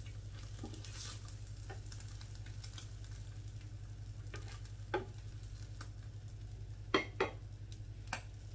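Omelette with minced meat sizzling in a non-stick frying pan while two wooden spatulas scrape and push it around the pan, over a steady low hum. A few sharp knocks of wood on the pan come in the second half, the loudest about seven seconds in.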